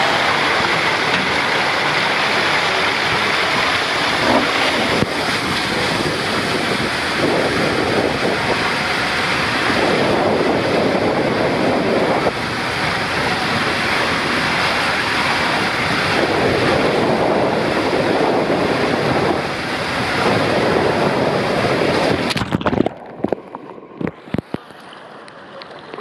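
Water rushing and splashing around a rider sliding down an enclosed fibreglass tube water slide, loud and steady. About 22 seconds in comes the splashdown into the pool, after which the sound turns muffled and much quieter.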